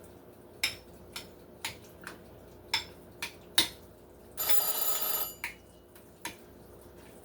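Spoon tapping and clinking against a bowl during stirring. About four and a half seconds in, a cooking timer sounds one ringing tone for just under a second, signalling that the chicken is done.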